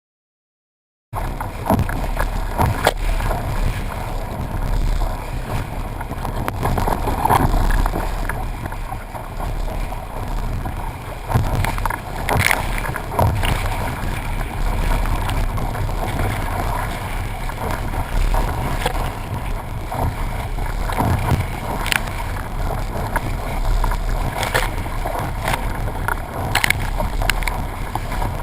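Wind and water noise aboard a C&C sailboat under sail, starting about a second in, with a few sharp knocks scattered through it.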